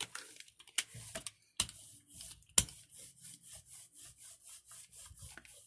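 Rubber brayer rolled back and forth over a paint-covered gel printing plate, spreading the paint thin: a quiet rubbing, repeated several times a second, with a few sharp clicks in the first half.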